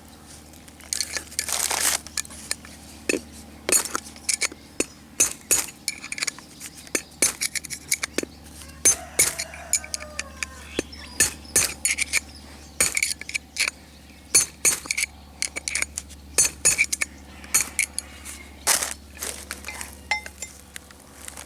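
A hammer striking a metal punch to drive the old bearing outer race out of a car's rear wheel hub: a long run of sharp metallic taps with short ringing, about two a second and unevenly spaced.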